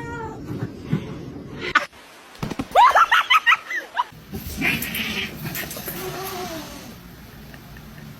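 A pet animal crying out in a quick run of short, high, rising cries about three seconds in. A fainter, lower call follows a couple of seconds later.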